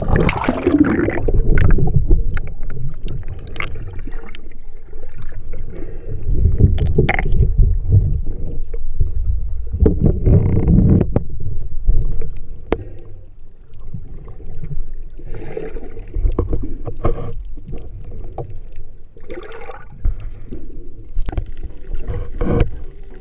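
Sea water splashing and gurgling around a swimming spearfisher's action camera: a splashy entry into the water, then muffled underwater sloshing and rumbling that comes in irregular surges with occasional sharp clicks.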